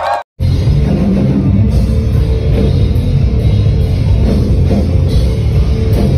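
Heavy metal band playing loud live music with distorted guitars and a driving drum kit. It comes in after a split-second gap near the start.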